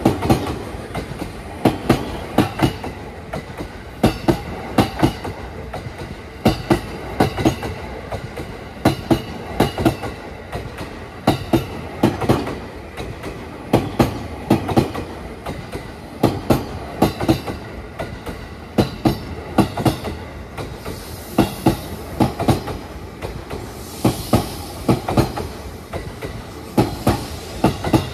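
An E231 series 1000 coupled with an E233 series 3000 commuter EMU rolls slowly past, pulling away from a passing loop. Its wheels clack over a rail joint in tight clusters, one bogie after another, recurring every second or so over the steady rumble of the cars.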